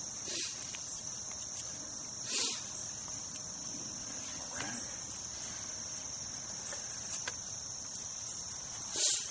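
A steady, high-pitched insect chorus, with a few brief louder noises: one near the start, one about two and a half seconds in and one near the end.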